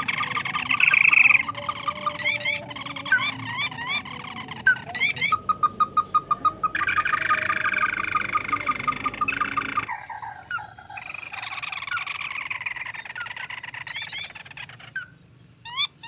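A chorus of frogs croaking in a rice paddy, many calls overlapping, with repeated quick rising chirps. The chorus drops quieter about two-thirds of the way through.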